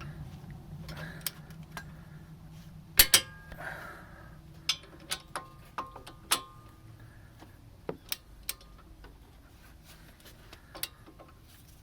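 Wrench and socket clicking and clinking on metal while the front brake bolts are torqued down to spec. The loudest is a sharp double click about three seconds in, followed by scattered single clinks with a short metallic ring.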